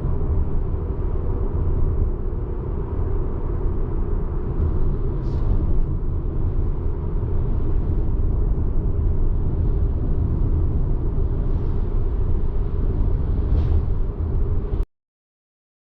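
Steady low rumble of a car on the move, road and drivetrain noise, cutting off abruptly near the end.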